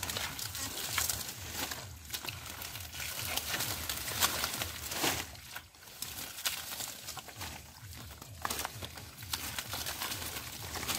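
Water hyacinth stems and leaves rustling, crackling and snapping as clumps are grabbed and pulled up by hand from wet mud, with irregular sharp crackles throughout.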